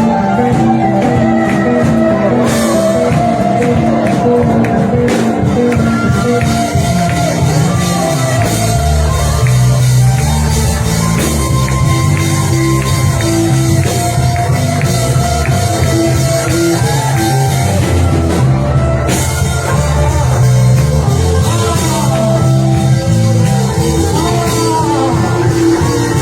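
Live worship band playing a sustained, ongoing worship song, with voices singing over it; the bass fills out about eight seconds in.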